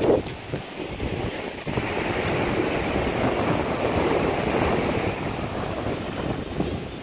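Ocean surf washing on the beach, with wind buffeting the microphone. The wash swells a couple of seconds in and eases near the end.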